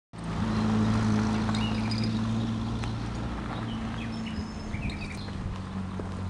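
A steady low hum, loudest in the first three seconds, with birds chirping over it and a few faint scuffing steps on gravel.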